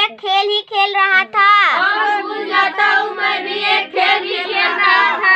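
A young girl's voice chanting lines of an English poem in a sing-song way, with a long downward slide in pitch a little under two seconds in.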